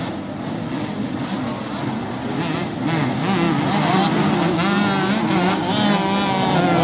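A pack of two-stroke motocross bikes racing, several engines revving up and down at once as riders work the throttle over jumps and corners. The revving gets louder about three seconds in.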